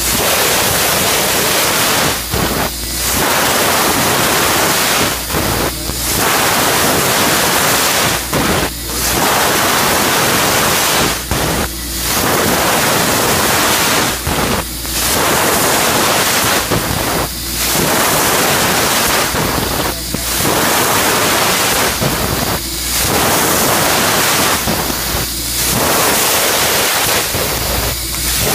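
CNC laser cutting machine cutting sheet steel: a loud steady hiss broken by short gaps about every three seconds, one gap for each new cut.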